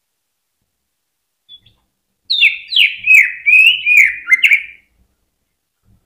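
Green leafbird (cucak ijo) singing: a faint short note, then a quick phrase of about six loud downslurred whistled notes lasting some two and a half seconds.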